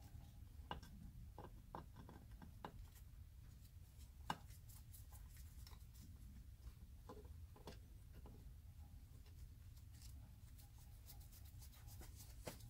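Faint clicks and rustles of gloved hands handling wires and crimp terminals in an air compressor's electrical box, with one sharper click about four seconds in.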